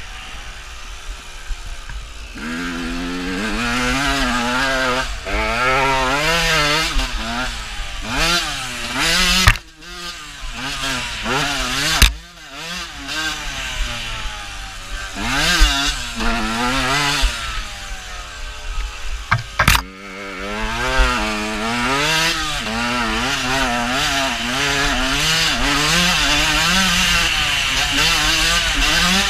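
Dirt bike engine revving up and down repeatedly as the bike is ridden hard, the pitch climbing and dropping with each burst of throttle and gear change. A few sharp knocks cut through, about ten, twelve and twenty seconds in.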